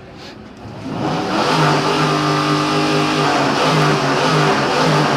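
A car engine revved hard about a second in and held at high revs, wavering slightly, in a rev-off.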